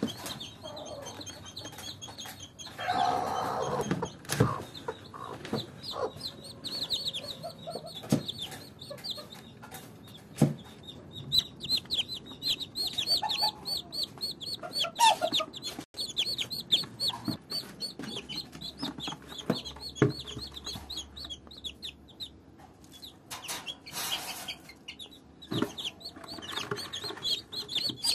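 Newly hatched chicks peeping continuously in fast, high cheeps, with a hen clucking low now and then, loudest about three seconds in. A few sharp knocks come from the chicks being handled in a plastic bucket.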